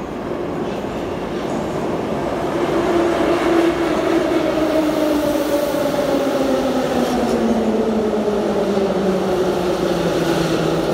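Metro train pulling into a station: its rumble grows louder over the first few seconds, then the electric traction motors' whine falls steadily in pitch as the train brakes.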